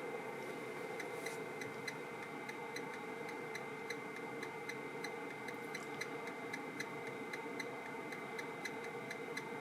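Car amplifier dyno test rig running a power test on a four-channel amplifier at 2 ohms: a faint steady hum with a thin tone, and regular sharp ticks about three times a second starting about a second in.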